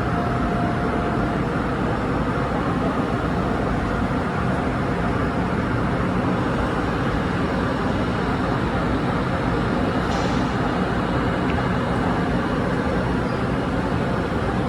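Steady rumble and hum of an electric multiple-unit train in a railway station, even in level throughout, with a brief high hiss about ten seconds in.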